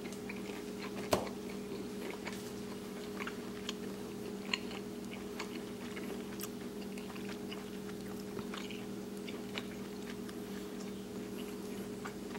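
A person chewing a thick-cut, crispy fried bacon slice, with scattered small crunches and a sharper crack about a second in. A steady low hum runs underneath.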